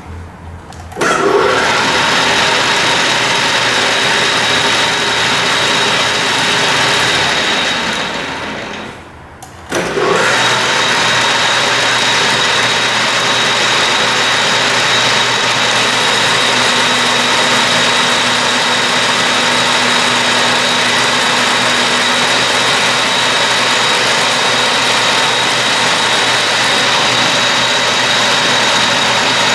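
Clausing 6329 metal lathe running under its 220-volt three-phase motor and variable-speed countershaft drive, with a steady high whine. It starts abruptly about a second in, winds down to a stop around eight to nine seconds, then starts again and runs steadily.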